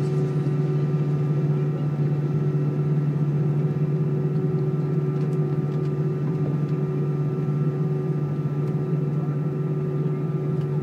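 Airbus A320's CFM56 turbofan engines at taxi idle, heard inside the cabin: a steady drone with a strong low hum and a few fainter steady higher tones.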